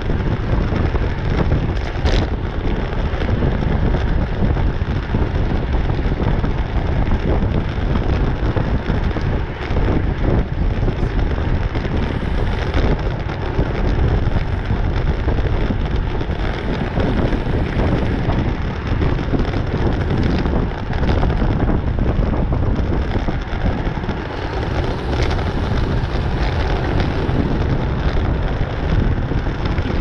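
Heavy wind noise on a bike-mounted camera's microphone while cycling at racing speed, about 26 to 28 mph: a loud, steady, low rumble.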